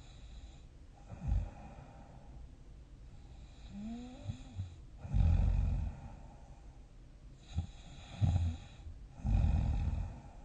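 A sleeping person snoring in irregular snores of uneven length. The longest and loudest comes about five seconds in and another near the end, with a brief whistling tone that rises in pitch just before the long one.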